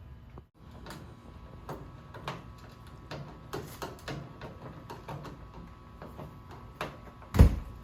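Scattered light clicks and knocks of an aluminum window louver and its mounting hardware being handled and fitted, with one loud thump about seven and a half seconds in.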